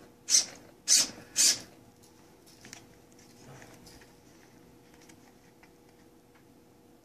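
Three short whirring bursts from a small RC car's electric motor, pulsed about half a second apart, then only a faint steady hum.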